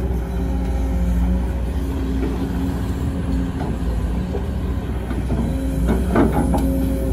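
Sumitomo hydraulic excavator's diesel engine running steadily under load as it digs and swings, dumping a bucket of dirt into a dump truck's bed, with a short clatter about six seconds in.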